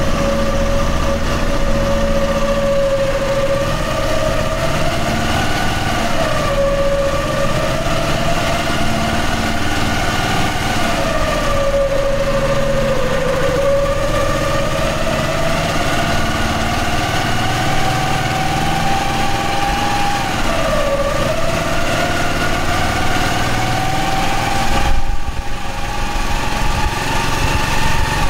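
A running engine or motor with a low rumble under a high whine that slowly rises and falls in pitch several times, each climb lasting a few seconds before the pitch drops back.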